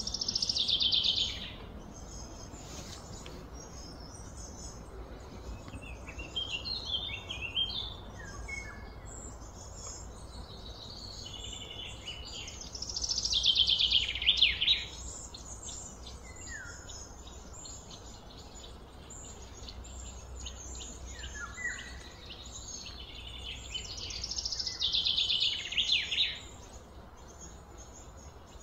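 Birds singing and chirping: a loud, fast run of high notes comes three times, about every twelve seconds, with scattered short chirps in between, over a steady low hum.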